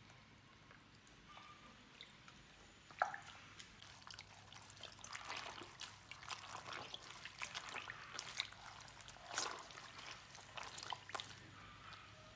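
Clothes being hand-washed in a stainless steel bowl of water: wet fabric rubbed and squeezed, with irregular splashes and drips, busiest in the middle stretch. A single sharp knock about three seconds in.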